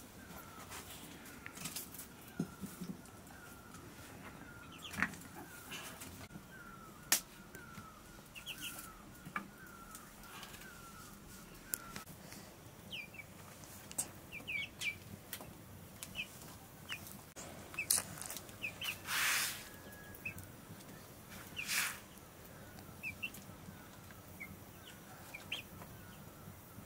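Domestic chickens calling softly: a run of quick repeated notes through the first dozen seconds and scattered short high peeps, with a few light knocks and two short rustling bursts in the second half.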